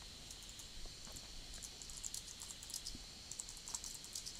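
Computer keyboard typing: a quick, irregular run of faint key clicks as a line of text is typed.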